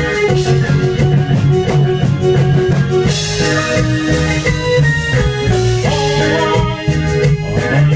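Live band music with electric guitar and button accordion over bass and drums, in a steady beat.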